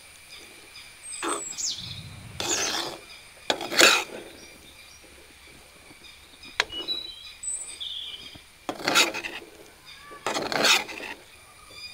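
A flat steel spatula scraping against a metal kadai as cooked rice is tossed and mixed, about five scrapes with a longer pause in the middle. Birds chirp faintly in the background.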